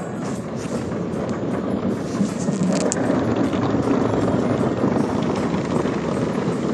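Automatic car wash heard from inside the car: a steady rushing roar of water jets and wash equipment working over the car's body and windows.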